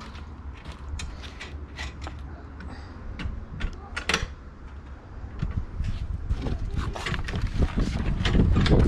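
Scattered clicks and knocks of something being handled. From about halfway through, a low rumble like wind buffeting the microphone builds and grows louder.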